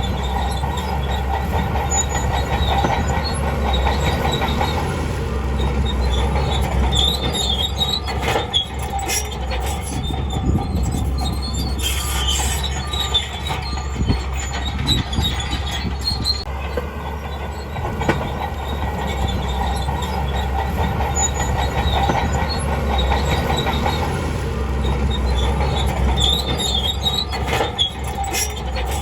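Shantui DH17C2 crawler bulldozer running, its steel tracks squealing and clanking over the engine's steady drone.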